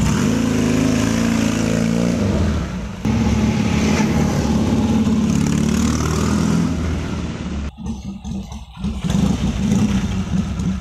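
Triumph 650cc parallel-twin motorcycle engine revving as the chopper pulls away and accelerates. Its pitch climbs, breaks off briefly about three seconds in, then climbs again. The sound drops and turns uneven about eight seconds in, then runs steadily again.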